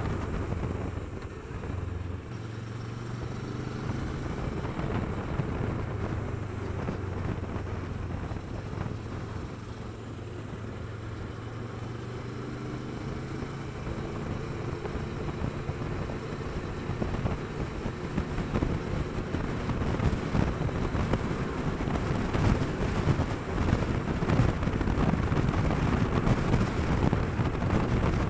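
Kawasaki Versys 650's parallel-twin engine running steadily at cruising speed, with wind rushing over the microphone. The engine note holds steady through the first half, and the wind noise grows louder in the second half.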